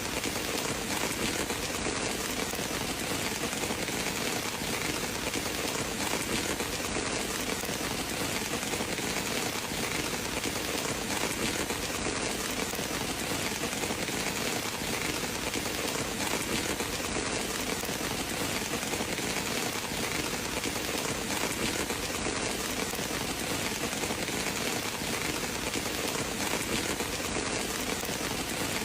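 Steady rain falling, an even hiss without breaks or thunder.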